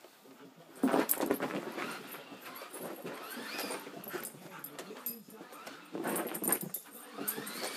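A dog whining in excited, rising-and-falling cries, with louder outbursts about a second in and again around six seconds.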